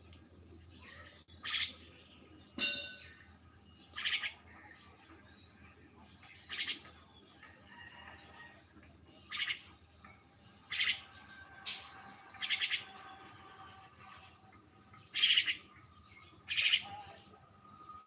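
Myna giving short, harsh calls, about ten in all, spaced irregularly a second or two apart.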